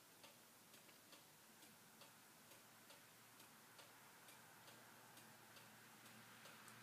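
Near silence: faint room tone with a soft, even ticking, about two ticks a second.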